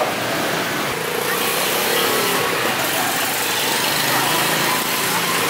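Steady street traffic noise, with the engines of passing vehicles running.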